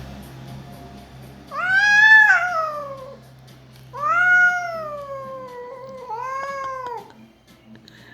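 A domestic cat yowling in a fight: three long, drawn-out calls, each rising and then falling in pitch, the last two running almost into each other.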